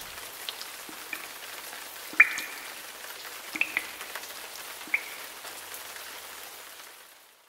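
Light rain-like patter of falling water, a steady hiss with scattered drops plinking, the loudest about two seconds in; it fades out at the end.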